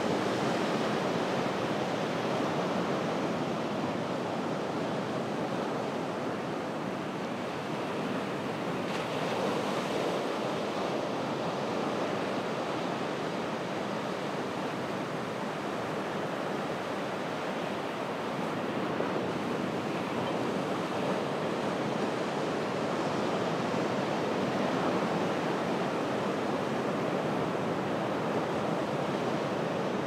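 Ocean surf washing onto a beach at low tide: a steady rush of breaking waves that swells and eases gently, with no single crash standing out.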